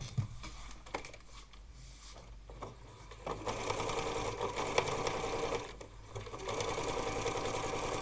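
Electric sewing machine stitching through layered patchwork fabric. It runs in two steady spells of two to three seconds each, starting about three seconds in, with a brief stop between them. A few light handling clicks come before it starts.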